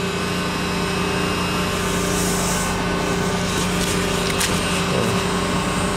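Electric heat gun running steadily: a blower-motor hum with rushing air, used to heat-weld polyethylene foam blocks. A brief high hiss about two seconds in and a light click a little past the middle.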